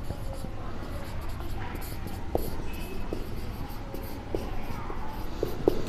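Marker pen writing on a whiteboard: short scratchy strokes, with several brief squeaks of the tip in the second half.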